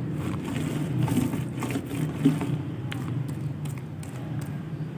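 Steady low engine-like hum in the background, with faint scratchy dabs of a paint roller pressing textured cement paint onto a wooden speaker box.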